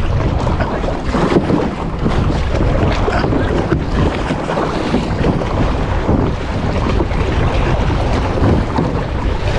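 Wind buffeting the microphone at sea, with steady wave and swell noise beneath it.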